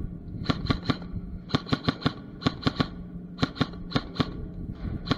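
Airsoft gun firing close by in quick strings of about four or five shots at a time, repeated about five times.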